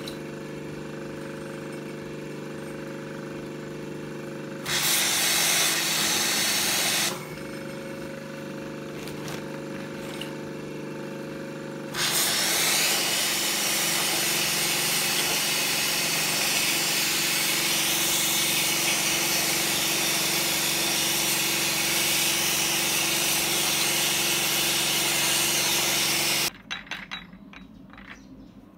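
Pressure washer running with a steady motor hum, and the high-pressure water jet hissing loudly against metal gears: briefly about five seconds in, then for about fourteen seconds. Near the end the sound cuts to a few light metal clinks.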